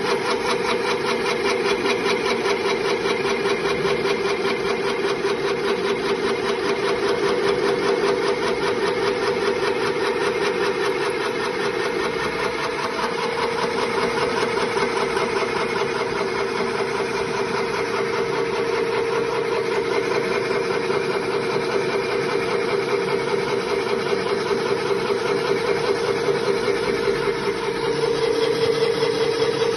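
Red grain mill running steadily while grinding, powder pouring from its spout: a constant mechanical drone with a fast, even pulsing texture.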